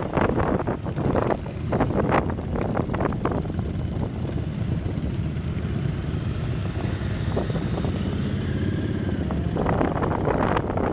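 Motorcycle engine running steadily while riding in a line of motorcycles. Wind buffets the microphone in gusts during the first few seconds and again near the end.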